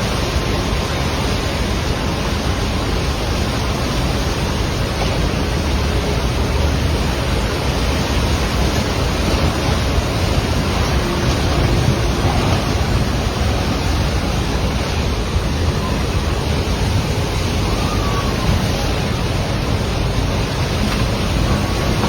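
Fast-flowing floodwater in a swollen river, rushing in a steady, loud, unbroken noise.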